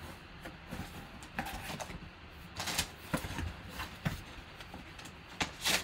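Cardboard box being opened by hand: flaps scraping and rustling, with crumpled packing paper crinkling, in a series of short irregular rustles and clicks, the loudest near the end.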